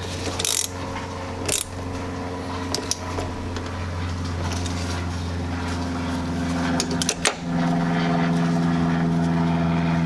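A steady engine hum, getting louder and changing tone about seven seconds in. Over it come a few sharp metal clicks from hand tools at the battery terminal.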